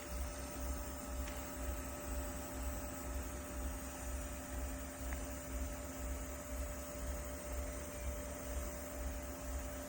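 Small USB evaporative air cooler's fan motor running at a steady speed: an even hum with a low throb pulsing about three times a second.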